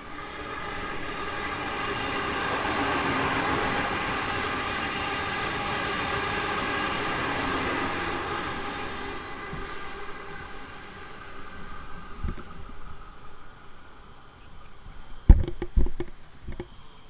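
Sydney Trains electric train passing through the station: wheel and motor noise with a steady multi-tone hum swells up, holds for several seconds, then fades away. A few sharp knocks follow near the end.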